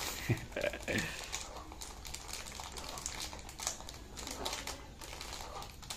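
Plastic packaging of instant noodles crinkling and crackling as the packet is handled and torn open, a run of small irregular crackles.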